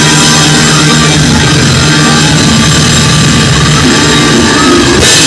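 Loud, steady upbeat gospel praise music from a live church band, with drums and sustained chords.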